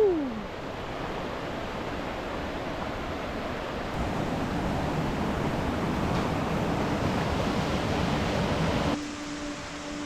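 Waterfall rushing, a steady roar of falling water that grows a little louder about four seconds in. A person's short 'woo!' opens it. About nine seconds in the roar cuts off sharply, leaving a quieter bed with a steady low hum.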